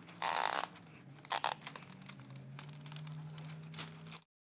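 Masking paper crinkling and rustling as it is folded and pressed along a hood's edge, with two sharp tearing rasps, about a quarter second in and again near 1.3 s. A faint steady hum runs underneath, and the sound cuts off suddenly near the end.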